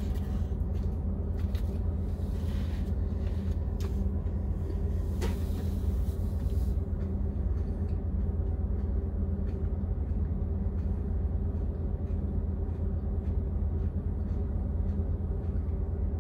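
Steady low rumble of an idling truck engine, heard inside a semi-truck cab. Light clicks and rustles in the first several seconds from eating out of a plastic takeout container.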